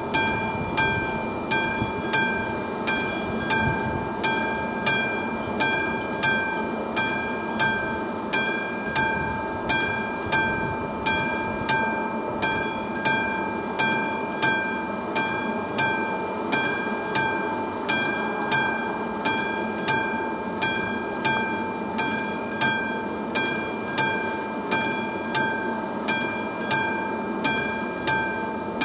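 Classic mechanical bell of a level-crossing warning signal striking steadily, about one and a half strikes a second, each strike ringing out briefly: the crossing is active, warning of an approaching train.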